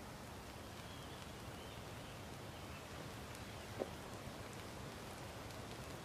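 Faint steady outdoor hiss with one short sharp pop a little past the middle, followed by a few faint ticks.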